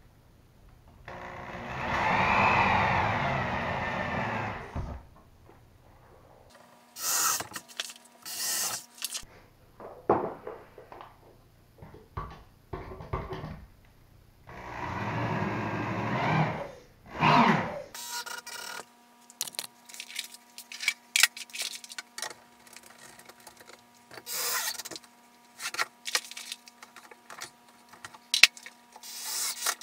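Power drill running in two bursts of a few seconds each, about ten seconds apart, its motor pitch rising and falling as it bites into a wooden strip on the wall. Knocks and clicks of handling the drill and wood come between and after the bursts.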